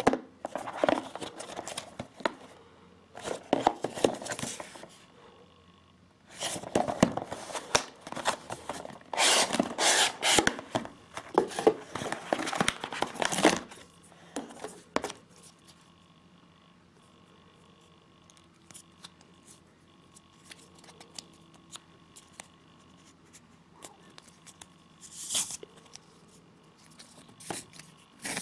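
Hands opening a cardboard knife box, with bursts of cardboard scraping and rustling through roughly the first half. After that comes quieter handling of the nylon sheath strap with scattered small clicks and one short rustle.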